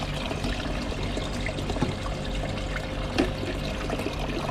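Water pouring and splashing steadily into a cooler livewell tank from the outlet of the running Attwood Tsunami 500 GPH aerator pump, which keeps the flow continuous to oxygenate live bait.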